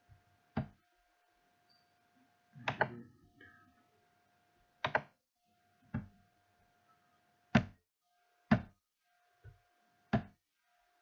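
Computer mouse clicks picked up close to the microphone: about eight short, sharp clicks at irregular intervals, with a faint steady electrical whine underneath.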